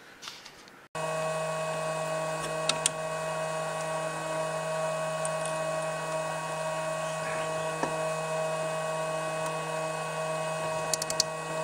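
Steady electric whine of the Dremel Idea Builder 3D printer running, its fans and motors holding several fixed tones, starting abruptly about a second in. A few light metallic clicks of a socket wrench on the nozzle, twice early and several near the end.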